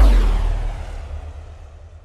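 A vehicle passing by: a rumbling whoosh that peaks at the start and fades away, its low pitch falling as it goes.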